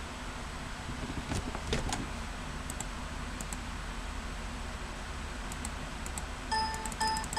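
A steady low hum with a few light clicks about a second and a half in, then near the end a run of short, evenly spaced electronic beeps about half a second apart.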